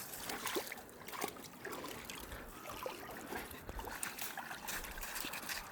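Shallow stream water trickling and babbling, with small irregular splashes throughout.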